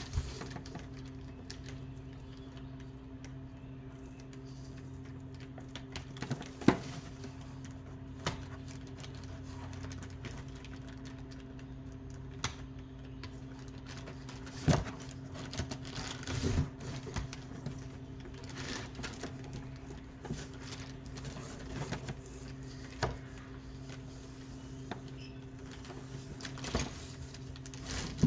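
Scattered sharp clicks and knocks of small hand tools and a tool bag being handled, over a steady low electrical hum.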